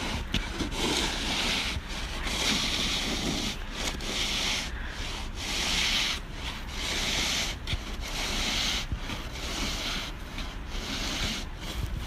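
Repeated scraping and crunching through snow, coming in swells every second or two.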